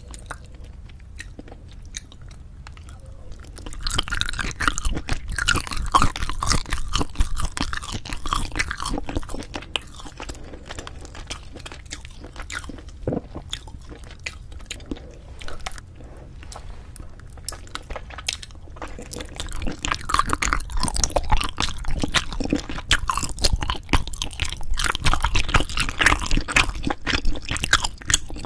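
Close-miked chewing of braised spicy chicken with cheese, with crackly, wet mouth sounds. The chewing comes in two loud spells, one about four seconds in and one again near twenty seconds, with quieter chewing in between.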